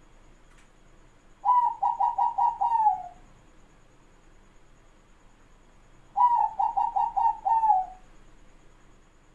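Zebra dove (perkutut) cooing: two song phrases, each a quick run of about six short coos ending in a longer note that falls in pitch, the first about a second and a half in and the second about six seconds in.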